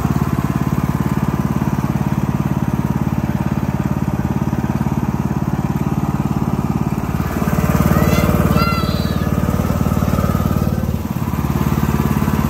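An engine running steadily at an even pitch, a little louder for a moment about eight seconds in.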